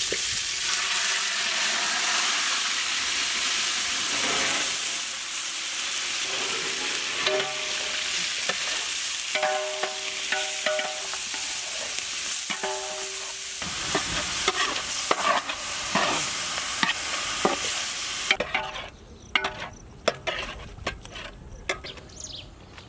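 Minced mutton sizzling in hot ghee with whole spices as it is stirred. The sizzle is loud and dense until about three-quarters through, then dies down sharply, leaving scattered knocks and scrapes against the pot.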